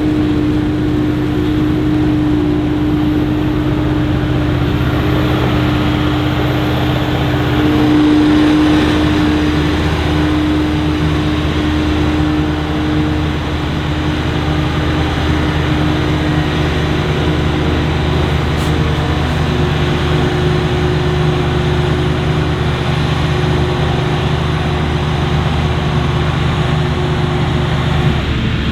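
Heavy harvest machinery running steadily under load: a self-propelled forage harvester chopping maize alongside tractor engines, with a strong steady hum.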